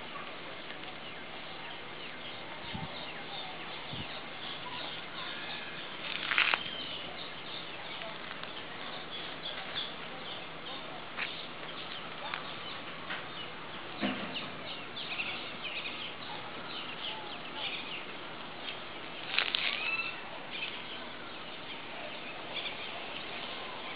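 Outdoor ambience with many birds chirping on and off. Two louder calls stand out, about six seconds in and again near twenty seconds.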